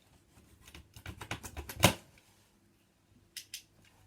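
Cardboard shipping box being handled: a run of light taps and knocks about a second in, ending in one sharper knock, then two faint clicks near the end.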